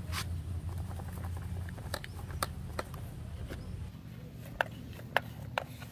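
Sand sliding and being scraped by hand out of the tipped plastic bed of a toy dump truck, a soft pattering with several sharp clicks and taps of plastic scattered through, over a steady low rumble.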